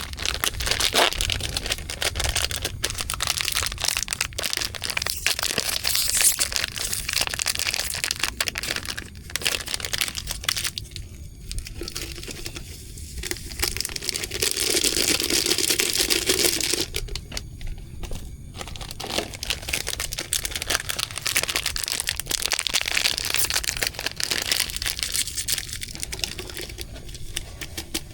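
Continuous crinkling, crackling rustle made of many small clicks, swelling louder for a few seconds a little past the middle.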